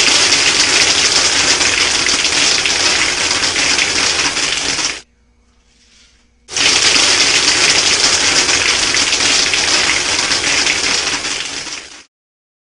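Soda-bottle airsoft machine gun fed by an air-compressor blowgun firing two long bursts of about five seconds each, with a short pause between: a loud rush of compressed air with a dense rattle of airsoft pellets blasting out of the brake-line barrel.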